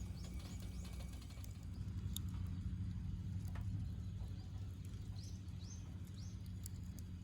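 Wood fire burning in a fire pit, with a steady low rumble and scattered sharp crackles and pops. A small bird calls in quick runs of chirps near the start and again about five seconds in.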